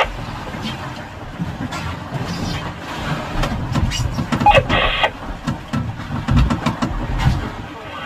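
Uneven low rumble of wind and sea aboard a small outrigger fishing boat, with scattered knocks and clicks of gear handled on the wooden deck, clustered near the end. A short voice cuts in about halfway through.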